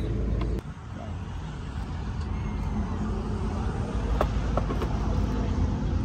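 Motor vehicle driving, a steady low rumble of engine and road noise. It drops abruptly about half a second in, then slowly builds back up.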